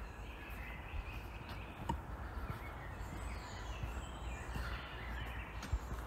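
Birds chirping and singing over a low steady rumble, with a few footsteps on a dirt path.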